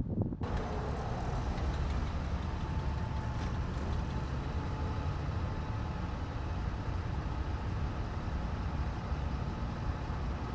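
Steady low rumble of outdoor background noise, picked up by the camera of a crashed FPV drone lying still on the ground. It cuts in abruptly less than a second in.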